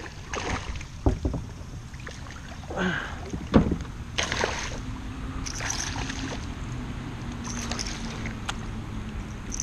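Hooked largemouth bass thrashing and splashing at the water's surface, with irregular splashes and knocks from the kayak and paddle.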